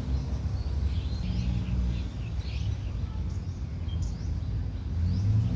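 Heavy diesel machinery running with a steady low rumble that swells a little near the end, with birds chirping several times over it.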